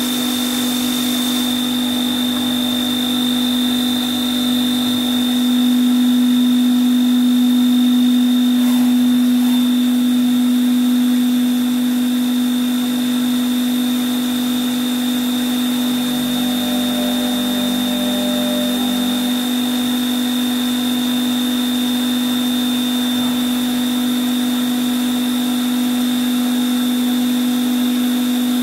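LMW JV Kraft five-axis vertical machining centre running, a steady low hum with a high whine above it; the hiss of the flood coolant spray cuts off about a second and a half in.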